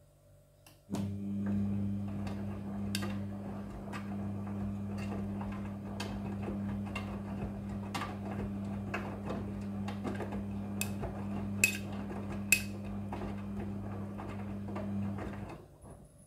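Front-loading washing machine turning its drum on the motor in a wash cycle: a steady motor hum starts about a second in and stops shortly before the end. Scattered clicks and knocks of the tumbling load run over it, with two sharper knocks near the middle.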